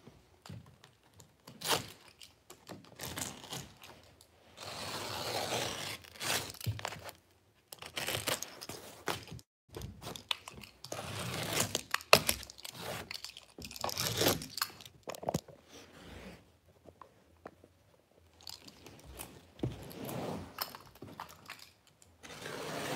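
Wall-to-wall carpet being trimmed and tucked along a baseboard with a carpet knife: irregular crunching and tearing as the blade slices through the carpet backing, with scraping against the wall, stopping and starting, and one sharp click about halfway through.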